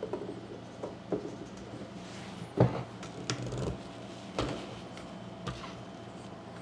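Knocks and clunks of a chainsaw being handled on a wooden workbench: its fuel cap screwed on, then the saw gripped by the handle and tipped to check the freshly filled tank for leaks. About six separate knocks, the loudest about two and a half seconds in, over a steady low hum.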